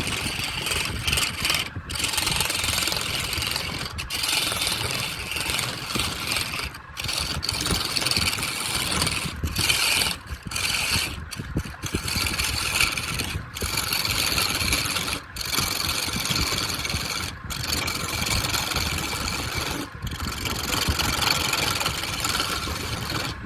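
A power tool cutting wood: a continuous loud, grinding noise, broken by short pauses every second or two.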